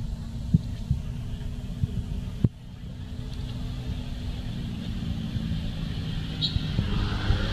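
A motor engine running with a low, steady rumble, with a sharp click about half a second in and another about two and a half seconds in.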